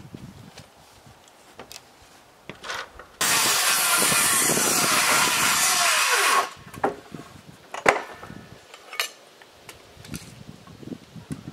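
Power saw cutting through a wooden board for about three seconds, starting abruptly a few seconds in and dropping in pitch as it winds down at the end of the cut. A few sharp knocks of wood follow.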